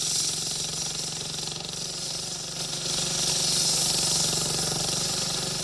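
Heavy road-construction machinery running steadily: a low engine hum under a loud hiss that swells slightly about halfway through.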